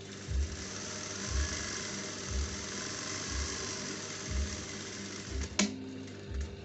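Juki industrial sewing machine running steadily as fabric is stitched, stopping with a sharp click about five and a half seconds in. Background music with a low beat about once a second plays throughout.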